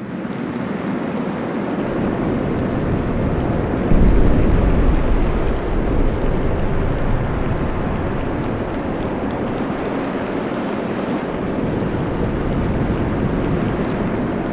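Sea storm ambience: a steady rush of wind and surf, with a sudden deep rumble about four seconds in that fades over the next couple of seconds.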